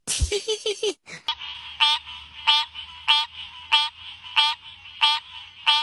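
Tree frog calling over a steady background hum: a short pulsed croak repeated about one and a half times a second, seven calls in all, starting about a second in.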